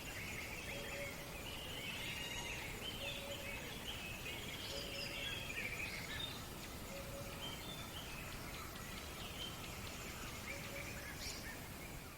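Several birds chirping and warbling together in a dawn chorus, with a short low call repeating every couple of seconds over a steady background hiss.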